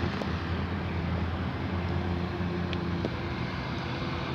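Truck engine running at a steady speed: an even low hum with hiss above it, neither rising nor falling.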